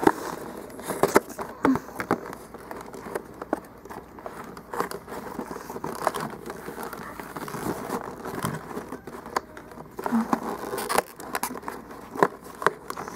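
Kitchen scissors cutting through stiff sealed plastic packaging: an irregular run of snips and sharp plastic clicks as the blades work along the package's rim.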